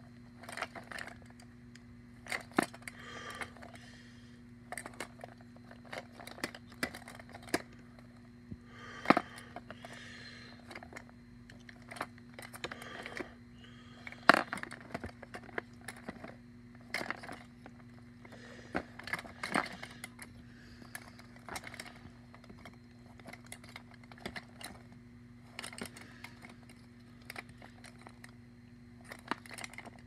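Bic-style disposable plastic lighters clacking and rattling against one another as a hand shifts them around in a packed plastic tub: irregular sharp clicks with a few louder knocks.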